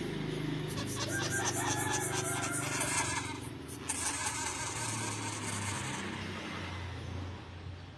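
Young sugar gliders crabbing: a rough, steady buzzing chatter that eases off near the end.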